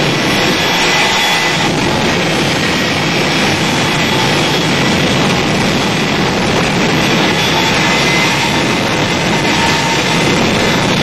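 Westinghouse jet engine fitted to a school bus, running at high power: a loud, steady roar with a faint whine on top.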